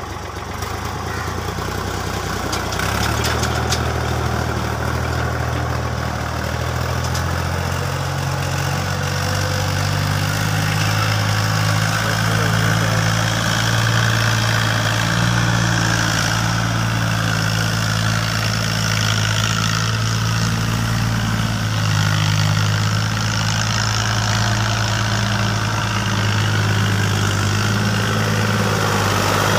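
Fiat 480 tractor's three-cylinder diesel engine running under load while pulling a tine cultivator through the soil: a steady low drone whose pitch steps up a few seconds in and again about ten seconds in.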